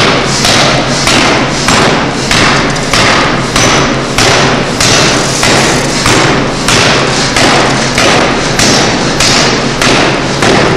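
Pneumatic forging hammer striking a red-hot metal bar in a steady run of heavy blows, about two a second, with a steady low hum underneath.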